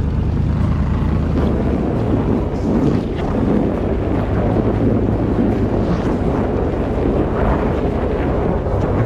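Pickup truck rolling slowly over packed snow: the tyre crunching over snow under a steady low engine hum, with wind buffeting the microphone beside the wheel.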